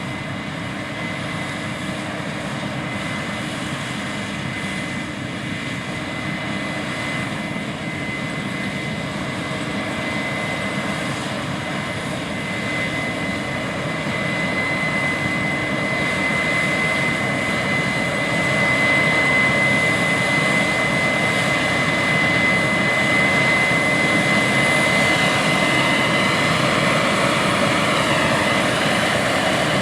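Big Case IH harvest machinery running in the field: a steady engine drone with a constant high whine on top, growing louder over the first twenty seconds or so and then holding steady.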